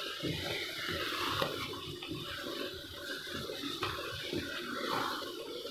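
A wooden spoon stirring thick cooked split green moong dal in a karahi: a steady churning with many small irregular clicks.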